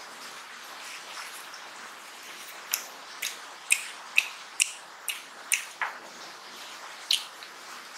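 Close-miked wet eating sounds from a mouthful of rice and mutton curry. The first couple of seconds are quiet, then from a little before the middle comes a run of sharp, wet smacks at about two a second.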